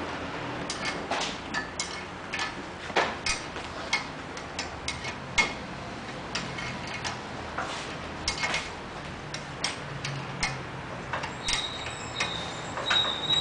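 Irregular metallic clicks and taps of a hand wrench working the long spring bolt and nut on a motorbike front fork bracket, roughly one or two a second. A thin, steady high whine comes in near the end.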